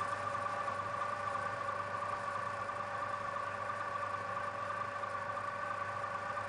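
Elevator sound effect as it lowers the submarine down a shaft: a steady machine hum of several held tones over a hiss, starting suddenly and staying even.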